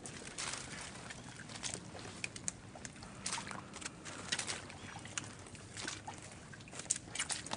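Footsteps through wet swamp ground: irregular swishing and splashing steps in shallow water and leaf litter, about one or two a second.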